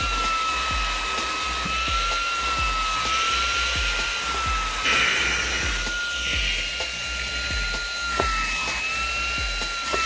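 Xiaomi Mi Vacuum Cleaner Mini cordless handheld vacuum running: a steady high-pitched motor whine over a rush of sucked air. There is a brief louder hiss about five seconds in and a single click a little after eight seconds.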